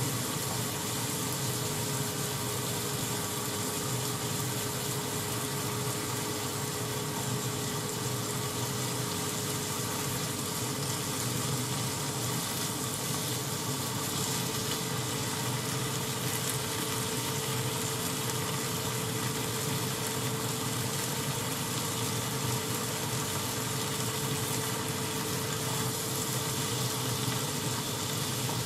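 Sliced onions and pork frying in a pan, a steady sizzle, with a faint steady hum underneath.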